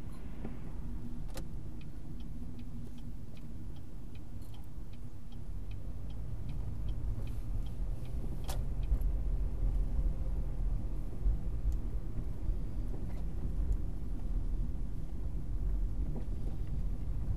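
Low rumble of a car's engine and tyres heard from inside the cabin while driving slowly. A turn signal ticks steadily, about two clicks a second, for several seconds in the first half as the car slows and turns. The rumble grows louder in the second half as it speeds up again.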